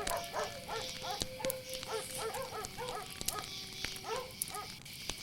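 Dogs barking rapidly, several short barks a second, over a steady high chirring of crickets, with a few sharp crackles.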